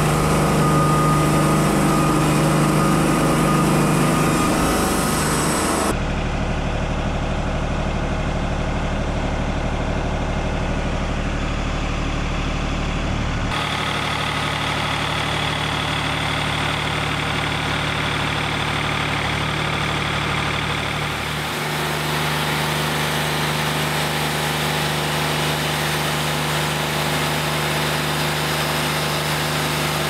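Wood-Mizer LT40 band sawmill running steadily as it works an oak log, the machine noise changing abruptly in tone three times.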